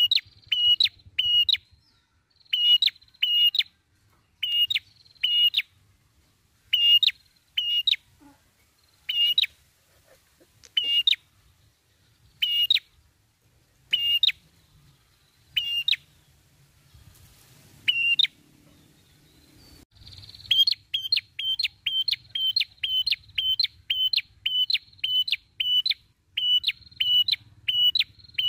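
Caged rufous-crowned tailorbird ('prenjak kepala merah') calling in sharp, high, repeated notes, first in groups of two or three with pauses, then, about two-thirds through, a fast unbroken run of notes.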